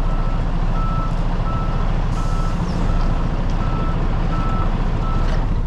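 Truck reversing alarm beeping steadily, about three beeps every two seconds, over the low rumble of the semi truck's running diesel engine while it backs up.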